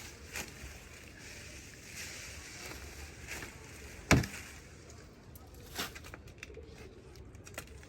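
A few scattered knocks and light handling noises, the loudest a single sharp knock about four seconds in, over a faint steady hiss.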